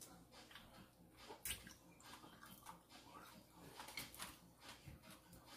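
Faint, scattered clicks and crackles of fingers peeling the shell off boiled shrimp, with a louder snap about a second and a half in.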